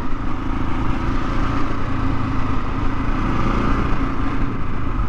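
Husqvarna 701's single-cylinder engine breathing through an Akrapovic slip-on exhaust, running steadily while the bike is ridden; its note drops away about four seconds in, as the throttle is eased off.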